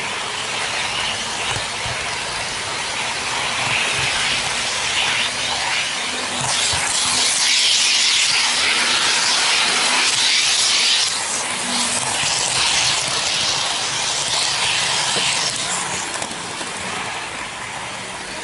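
N-gauge model train running along its track, heard from a camera riding on it: a steady hiss that grows louder for a few seconds in the middle.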